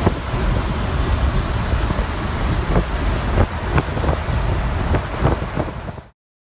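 Road and engine rumble inside a moving semi-truck's cab, with a few sharp knocks and rattles, cutting out about six seconds in.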